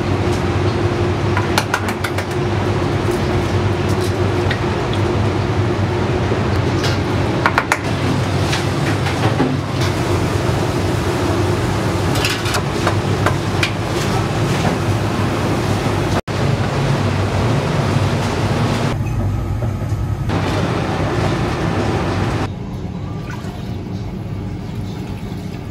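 Busy commercial kitchen noise: a steady, loud mechanical hum from the kitchen's equipment, with scattered clicks and clatter of utensils and eggshells. The sound drops to a quieter hum for the last few seconds.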